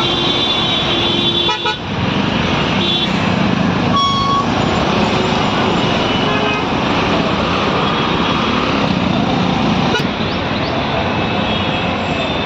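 Busy street traffic: vehicles running past with a steady din, and several short horn toots.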